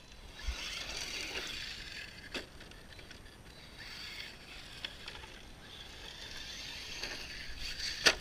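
Arrma 6S short-course RC truck driving on a dirt track, its electric motor whining up and down with the throttle over the crunch of tyres on dirt and gravel. A few sharp knocks, the loudest just before the end.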